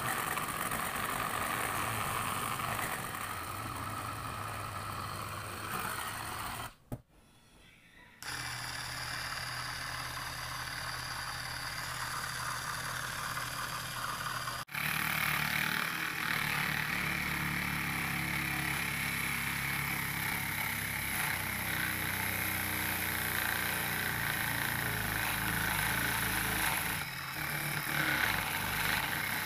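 Small 12–24 V DC motor running a homemade coconut grater, its belt-driven drum of drink-can metal on PVC pipe rasping coconut flesh with a steady hum and rattle. The sound breaks off for about a second some seven seconds in.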